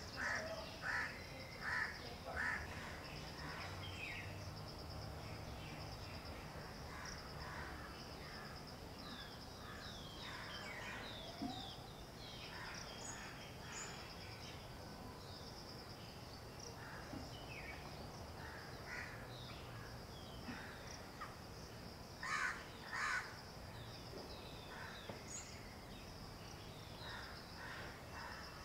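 Outdoor daytime ambience: a crow caws in a quick series of harsh calls, about two a second, over the first couple of seconds, and twice more about 22 seconds in. Other small birds chirp throughout over a steady high insect drone.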